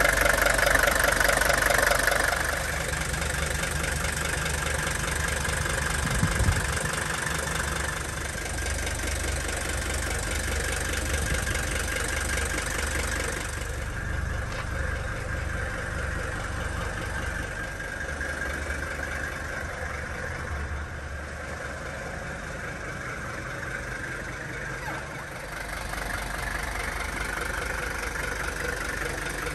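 Mercedes 300TD estate's five-cylinder diesel engine idling steadily, louder over the first couple of seconds, with a brief thump about six seconds in.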